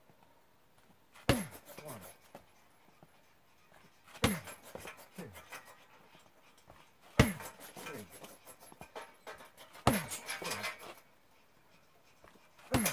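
Heavy punching bag kicked about every three seconds, five sharp thuds in all. Each thud is followed by a short falling whine and a rattle as the bag swings on its hanger.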